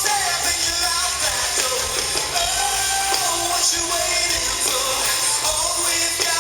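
Live band playing a song with a lead voice singing over it, at a steady full level.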